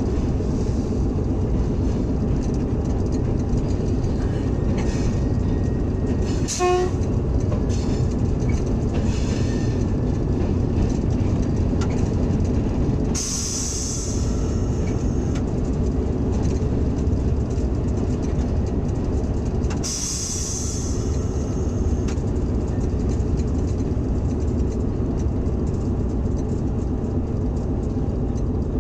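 Hitachi HBU-20 diesel-electric locomotive running steadily, heard in the cab as the train rolls slowly into a station. A brief tone sounds about a quarter of the way in, and there are two bursts of hissing air, one about halfway and one about two-thirds through, typical of the air brakes as the train slows.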